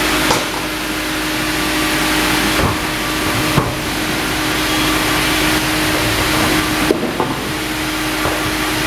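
Sawmill band saw and log carriage running: a loud, steady whirring noise with a constant hum underneath, broken by three sharp knocks about three seconds apart.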